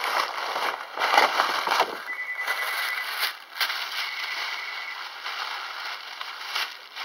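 Hands rummaging in a bag right against the microphone: rustling and crinkling in uneven bursts, with a few sharper crackles about three and a half seconds in and again near the end.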